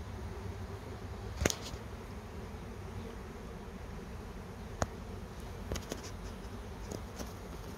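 Steady, dense buzzing of a honeybee swarm pouring out of the hive and filling the air, with a few sharp clicks on top, the loudest about a second and a half in.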